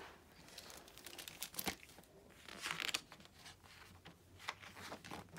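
Faint rustling and light taps of a picture book being opened and its pages turned, with a brief swish of paper a little under three seconds in.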